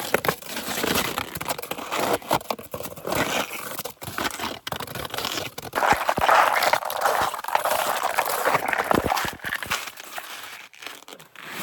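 Close-up crunching and crackling of glacier ice, a rapid, irregular run of cracks and scrapes that is loudest about halfway through.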